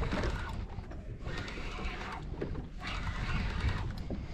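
Wind rumbling on the microphone, with about three rushes of hissing noise roughly a second apart, while a hooked fish is reeled up to the boat on a spinning rod.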